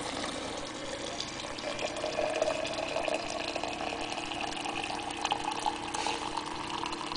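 Boiling water pouring from an Akira electric thermopot into a stainless steel vacuum flask, the pitch of the filling rising as the flask fills, over a steady hum.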